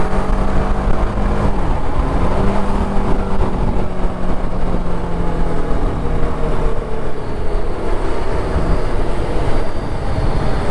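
Motorcycle engine running steadily at road speed over wind and road rush. The engine note dips briefly about two seconds in and comes back up. After about seven seconds it fades under the wind noise.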